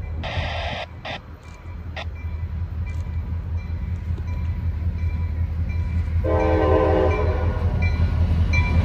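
Air horn of an approaching CSX diesel locomotive, sounding a chord of several tones: a short blast at the start, a brief toot about a second in, then a long blast from about six seconds in. Beneath it the locomotive's low rumble grows steadily louder as it nears.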